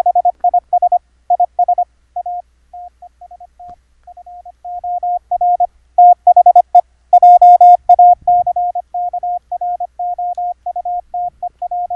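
Morse code sidetone: a single steady tone keyed in dits and dahs by a K1EL keyer sending a stored message. Its volume is turned down about two seconds in, brought up to its loudest around six to eight seconds in, then settles at a middle level.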